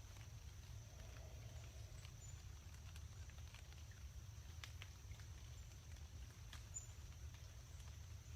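Faint, scattered drips of rain falling from the tree canopy, single drops landing a second or so apart over a low steady rumble and a thin steady high tone.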